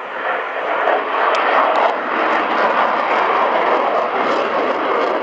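Saab JAS 39 Gripen fighter jet's single jet engine, heard from the ground as the jet flies past and climbs: a loud, steady rushing jet noise that grows louder over the first couple of seconds and then holds.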